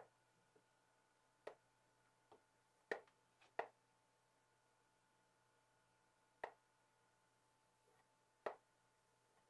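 Chalk tapping and scraping on a chalkboard as a line drawing is made: about eight short, sharp clicks at irregular intervals, over a faint steady electrical hum.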